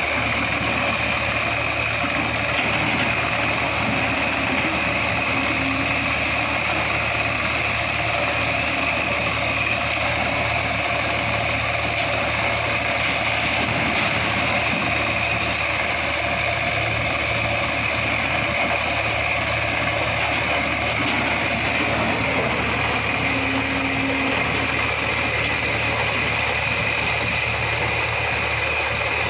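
Excavator engine running steadily at an even level, with a constant high-pitched whine over a low drone.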